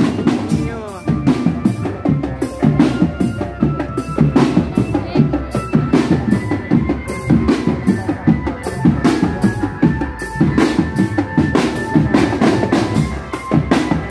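Marching drum band playing: bass drums and snare drums beating a fast, busy rhythm, with a held-note melody line over the drums.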